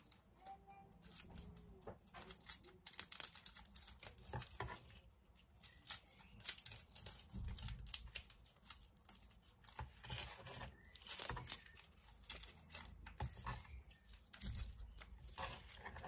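Dry, papery garlic skins crinkling and tearing as cloves are peeled by hand, a run of small irregular crackles.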